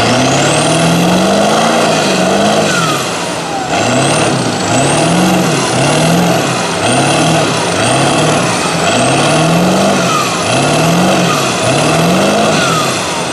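Lifted Ford crew-cab diesel pickup's engine revved hard again and again, about once a second, as it churns through deep mud, with a high whistle rising and falling with each rev.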